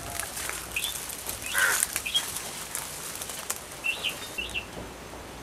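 Birds chirping a few short times over faint scuffing, clicking and leaf rustling from someone climbing a papaya tree.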